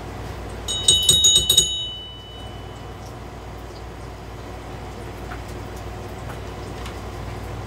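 A brief high-pitched metallic ringing with rapid rattling strokes about a second in, one tone lingering a little longer before it fades, over a steady low hum.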